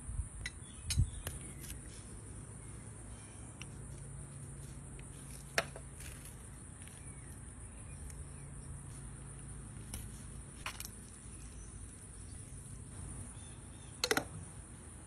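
Steady high-pitched drone of insects outside, with a few sharp clicks and taps, the loudest near the end, as a stainless-steel marinade injector is worked in and out of a glass sauce bottle and into a pork shoulder.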